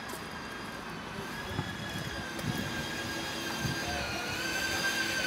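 Steady high-pitched mechanical whine with several pitches at once, from running machinery. It dips slightly in pitch about four seconds in and grows louder towards the end.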